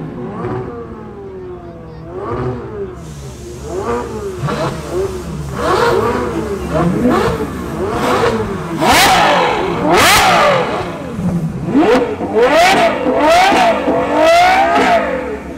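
Ferrari 812 Superfast N-Largo's naturally aspirated V12 revved again and again in quick blips, each sweep rising and falling in pitch, about one a second, with the loudest blips in the second half.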